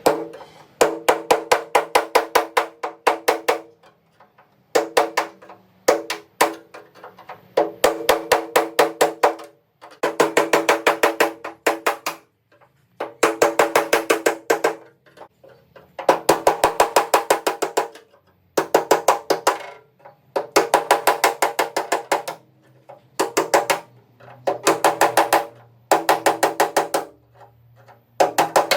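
Background music of rapid wooden percussion, played in short runs of quick, evenly spaced pitched strikes with brief pauses between them.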